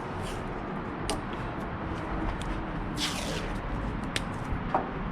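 Masking tape being pulled off the roll, with one short ripping burst about three seconds in and a few small clicks and taps, over a steady background hum.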